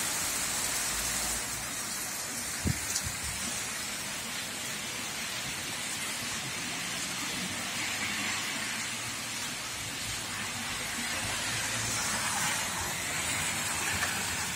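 Heavy rain mixed with hail falling during sunshine, a steady hiss, with one sharp knock about two and a half seconds in.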